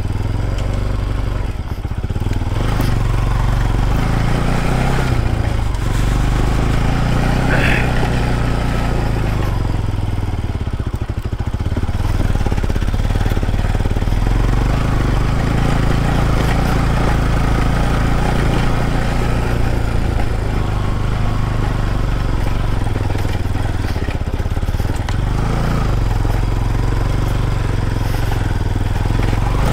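Motorcycle engine running continuously, its pitch rising and falling as the throttle changes.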